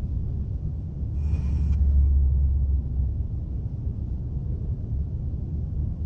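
Low, steady rumble that swells between about one and three seconds in, with a brief faint hiss about a second in.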